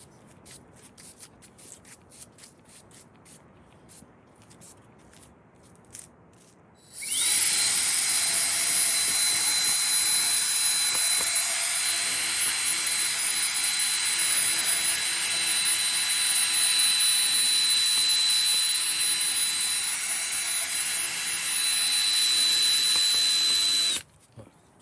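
Power drill with a sanding disc spins up about seven seconds in and runs steadily with a high whine, sanding the faded coating off a plastic headlight lens, then stops just before the end. Faint clicks and handling come before it.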